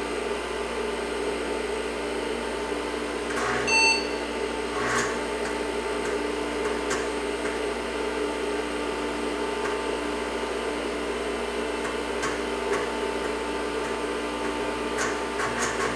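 IBM XT 5160 running with a steady hum from its power-supply fan and drives while it reboots. About four seconds in, the PC speaker gives one short POST beep, the sign that the self-test passed and booting is starting. A few drive clicks come around the beep and again near the end.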